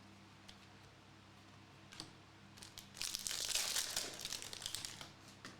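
A trading card pack wrapper being torn open and crinkled, a dense crackle about three seconds in that lasts roughly two seconds, after a few light ticks of cards being handled.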